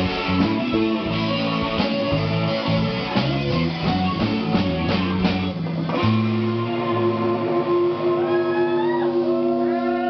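Rock band playing live with electric guitar, bass and drums; about six seconds in the band stops and holds a final chord that rings on.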